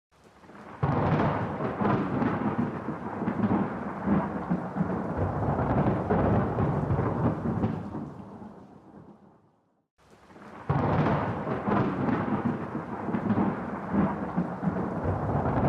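Two peals of thunder. Each breaks suddenly and rolls on for several seconds; the first fades away before the second breaks about ten seconds later.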